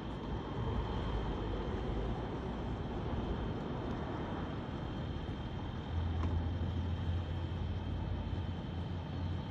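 Tow truck engine running steadily, with a stronger low hum coming in about six seconds in and holding.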